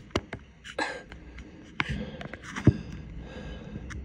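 Distant fireworks going off: irregular sharp bangs and pops, the loudest a little over two and a half seconds in.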